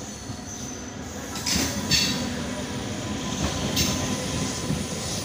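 Passenger train pulling into a station platform, its coaches rolling past with a continuous wheel rumble that grows louder about a second and a half in. Brief high squeals come about a second and a half and about four seconds in.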